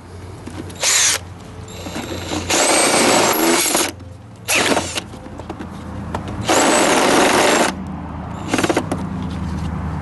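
Cordless drill run in about five short bursts, its bit enlarging a hole in a plastic scooter body panel. The longest run lasts about two seconds, with a high whine in the longer runs.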